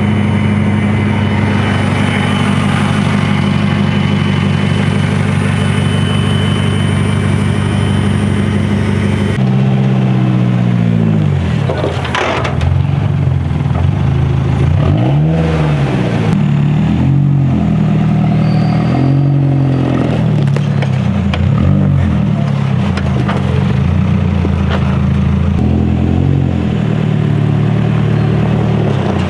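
Off-road vehicle engine running at a steady speed. After a sudden change about nine seconds in, it revs up and down about six times, a few seconds apart.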